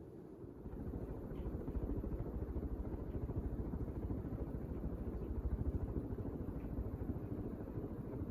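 Home Decorators Collection Junedale ceiling fan running, its air movement giving a rough, fluttering low rumble that grows louder about a second in and then holds steady.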